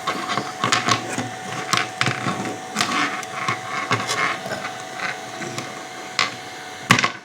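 Irregular crackling and sharp snapping of electric sparks from the cut output wire of a high-power IGBT shock-fishing inverter, over a steady high whine; the loudest snap comes near the end and the sound then cuts off suddenly.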